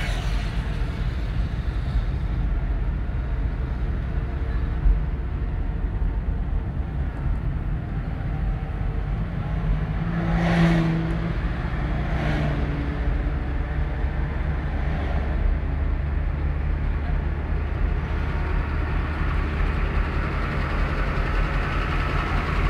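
Engine and road noise heard from inside a moving car: a steady low rumble. A brief louder pitched sound comes about ten seconds in, with fainter ones shortly after.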